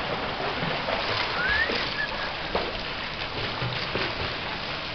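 Children splashing as they swim in a swimming pool: a steady wash of water noise.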